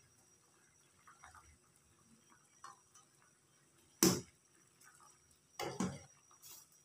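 Steel ladle knocking against an aluminium saucepan while stirring agar-agar liquid: one sharp clink about four seconds in, then a short cluster of knocks near the end.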